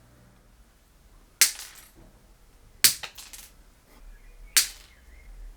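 Plastic wall plugs being cut into short standoffs: three sharp snaps, each a piece cut through, spaced about a second and a half apart.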